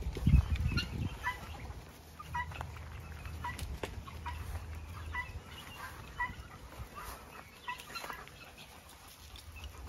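Chickens clucking, short separate calls at irregular intervals, about one or two a second. A low rumble on the microphone in the first second is the loudest thing.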